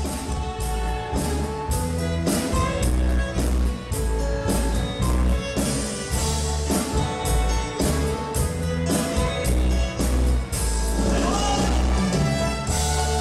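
Mexican cumbia band playing, with a steady, evenly spaced drum beat over a strong bass line.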